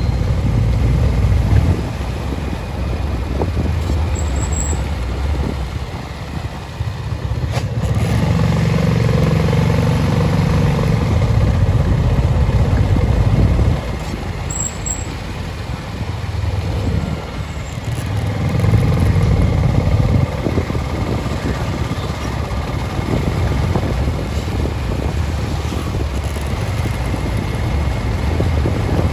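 A vehicle driving along a concrete road: a steady low rumble of engine and road noise that swells and fades, dipping briefly about a quarter of the way through and again around the middle.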